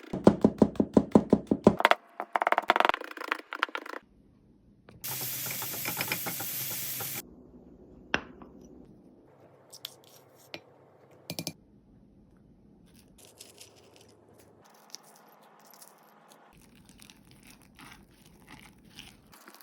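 Kitchen food-prep sounds: rapid light taps and scrapes of a utensil in a bowl for about two seconds, a couple of seconds of steady noise that cuts off suddenly, then scattered faint clicks and knocks.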